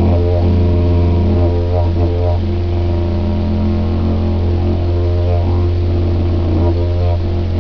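Didgeridoo played with a steady, unbroken low drone, its overtones shifting in rhythmic patterns above the drone as the player changes mouth shape.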